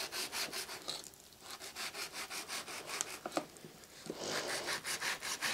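Kitchen knife sawing back and forth through diced pork fatback on a plastic cutting board, slicing the small cubes off the rind: quick, even strokes about four or five a second, with short breaks about a second in and again near four seconds in.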